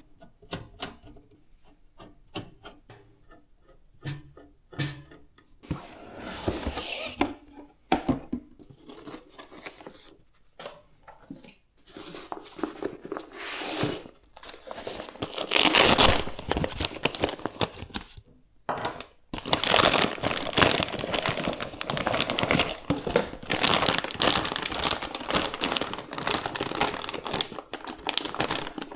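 Hands handling PC-building parts and packaging. A few light clicks come first, then crinkling and tearing sounds that grow busier and louder through the second half.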